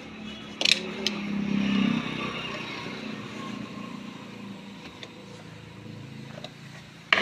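A motor running with a steady hum that swells about a second in and then eases off, with a few sharp clicks.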